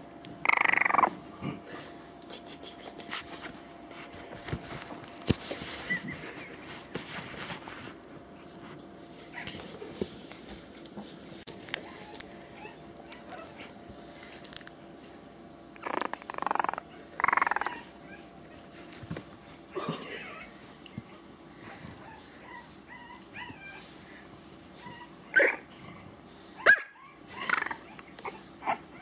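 Three-week-old French Bulldog puppy making short yaps and whimpers in scattered outbursts: one about a second in, a cluster a little past the middle, and several more near the end.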